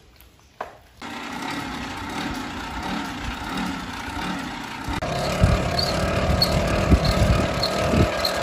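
Hand-cranked blower fan on a sheet-metal stove whirring as it is turned, forcing air into the fire. It gets louder about halfway through, with a steady whine and a light tick repeating a little under twice a second.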